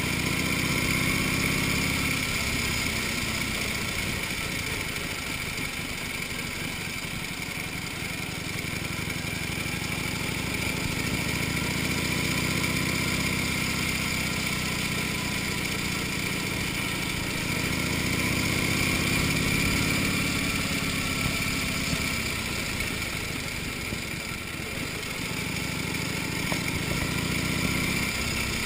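A 1931 Indian 101 Scout's V-twin flathead engine pulling at low town speed. Its note rises and eases off several times as the throttle is opened and closed.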